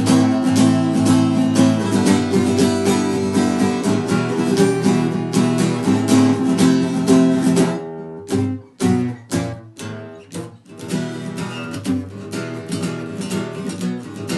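Guitar playing the rhythm part of a punk-rock song with steady strummed chords. About eight seconds in it breaks into a few short, separated chord stabs, then the strumming picks up again a little quieter.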